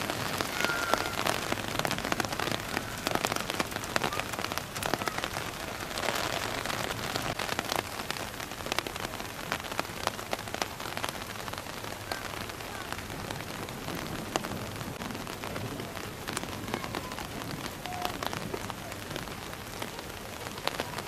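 Heavy rain falling on the sea: a steady hiss dense with sharp ticks of individual drops.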